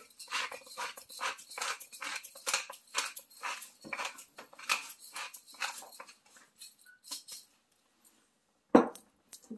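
Pepper mill grinding black pepper onto raw bison short ribs in quick crunching strokes, about three or four a second, stopping after roughly seven seconds. Near the end comes one loud sharp knock.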